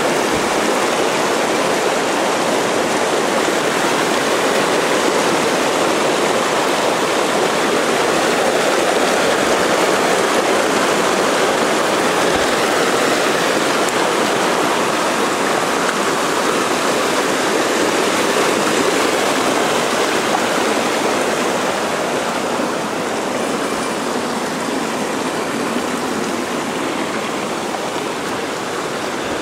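Mountain stream rushing over rocks: a steady, loud wash of running water that eases off slightly about two-thirds of the way through.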